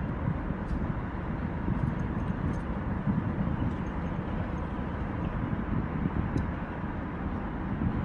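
Steady low rumble of road traffic crossing a highway bridge, mixed with wind buffeting the smartphone's microphone.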